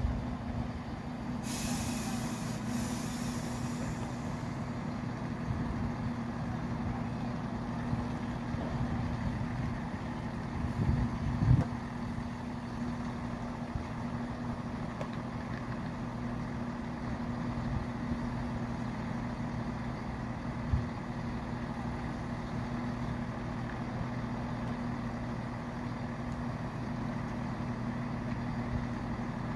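Class 170 Turbostar diesel multiple unit running into the platform and stopping, its diesel engines then idling with a steady low hum. There is a hiss of air from the brakes about two seconds in, and a couple of brief knocks around the middle.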